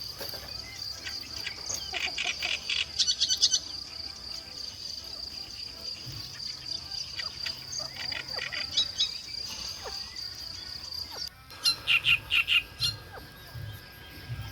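An insect trilling on one steady high note, overlaid by bird chirps and calls. The trill stops abruptly about eleven seconds in, and a quick run of loud bird chirps follows.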